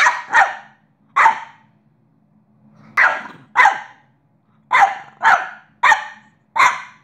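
French bulldog barking in excited play: about nine short, sharp barks, several coming in quick pairs, with short pauses between them.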